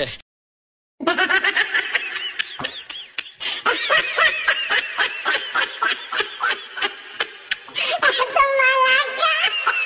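Rapid, high-pitched laughter that starts after a second of silence and goes on in quick repeated peals.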